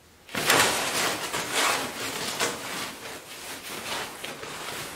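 Rustling of a white plastic packing sheet as it is pulled off and handled, a dense run of scratchy rustles starting just after the start and easing off toward the end.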